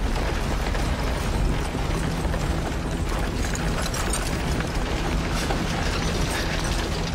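Wooden cage cart rolling along, a steady rumbling and rattling. A low held tone comes in about two seconds in.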